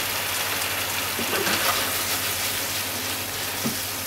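Beef and onions sizzling in a frying pan of simmering sauce: a steady hiss with a few faint crackles.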